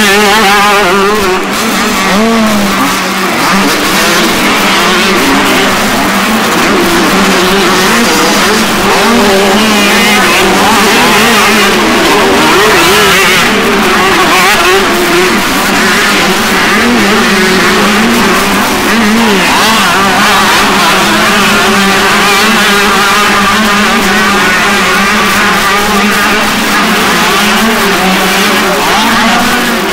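Several motocross dirt bikes racing on a dirt track, their engines loud and revving up and down without a break as the riders work the throttle.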